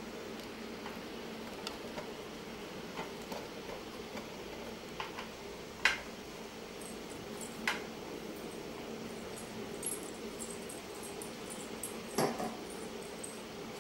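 A steady hum runs throughout, with a few scattered light clicks and taps; the sharpest come about six and eight seconds in, and a short, fuller knock comes near the end.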